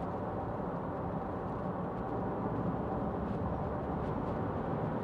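Steady low road, tyre and engine noise inside the cabin of a 2016 Mitsubishi Shogun 3.2 diesel on the move.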